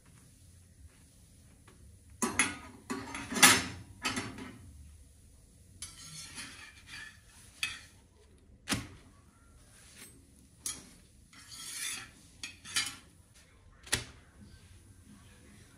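Slotted metal spatula scraping and knocking against a cast-iron pan as a puffed flatbread is pressed and turned: several rasping scrapes in short spells and a few sharp taps.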